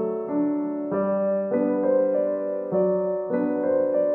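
Soft background piano music, a slow melody over chords, with new notes coming in about every half second to second.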